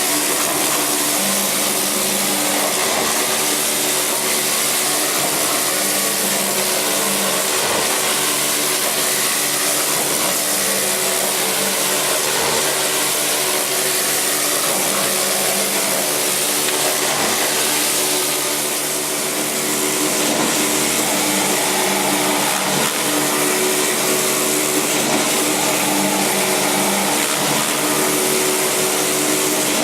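Motor-driven grate cleaner running steadily with an even, loud machine whir and hum. The level dips briefly about nineteen seconds in, then picks up again.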